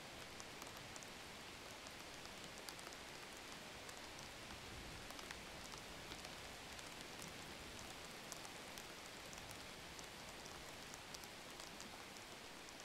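Vegetable hakka noodles frying in oil in a frying pan as they are stir-fried: a faint, steady sizzle with scattered small crackles.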